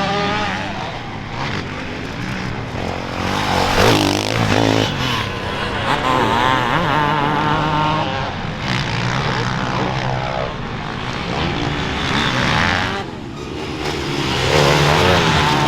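Several motocross engines revving hard and easing off as the machines race along the track, their pitches rising and falling with throttle and gear changes. The sound swells louder about four seconds in and again near the end as machines pass close.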